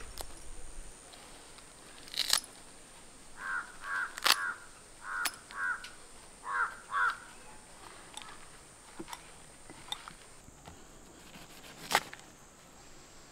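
A crow cawing about seven times, in short groups of two or three calls. A few sharp clicks fall in between and near the end.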